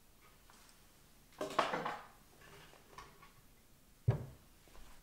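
Small household objects handled on a wooden tabletop: a short clattering rattle about a second and a half in, and a single dull knock about four seconds in as something is set down on the table.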